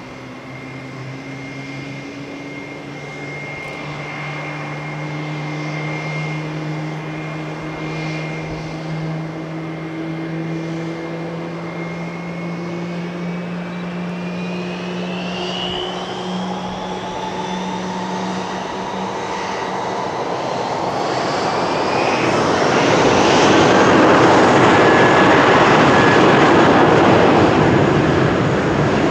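Boeing 777-300ER's GE90 turbofan spooling up during pushback: a whine climbs steadily in pitch, and a rushing roar builds loudly about two-thirds of the way through, over a steady low hum.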